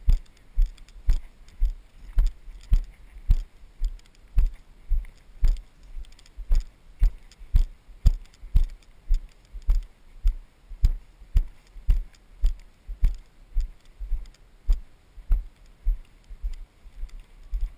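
A carried camera knocks and rattles in its mount with each walking step, a regular thud about twice a second.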